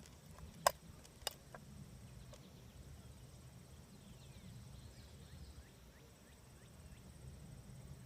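Quiet outdoor ambience: a low steady rumble, two sharp clicks about a second in, and faint high chirps in the middle.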